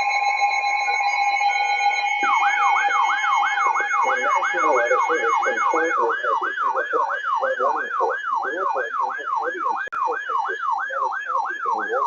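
Emergency alert tones: steady alert tones that cut off about six seconds in, overlapped from about two seconds in by a fast repeating rising whoop, about three a second, that stops near the end.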